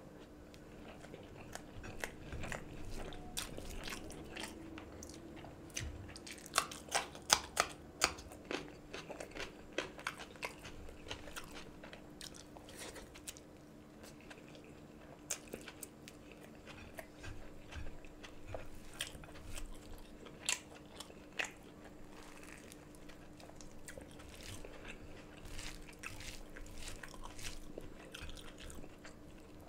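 Close-miked chewing and biting as a person eats rice and curry by hand, wet mouth sounds with many sharp crunchy clicks, a dense run of them about six to eight seconds in and again around twenty seconds.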